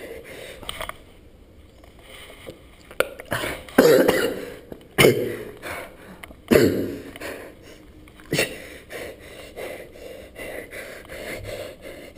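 A man coughing hard several times in a row, with a few quick clicks of a plastic pill bottle being shaken over his hand.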